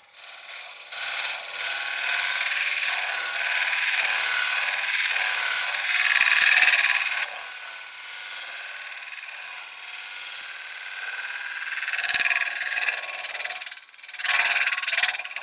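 A turning tool cutting into wood spinning on a wood lathe: a continuous rough hiss of the cut that swells and fades with the tool's pressure, drops away for a moment near the end, then comes back briefly.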